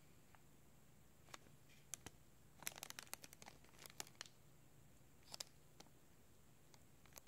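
Faint, intermittent crinkling of a thin clear plastic bag as the sunglasses are handled inside it, in scattered clusters of small crackles.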